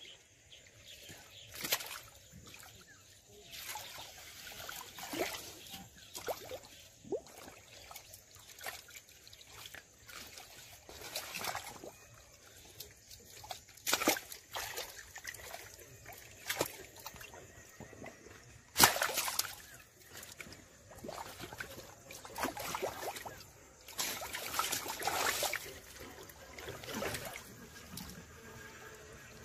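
Hands groping and splashing in shallow muddy water, in irregular splashes and sloshes with short pauses between them; the loudest splash comes about two-thirds of the way through.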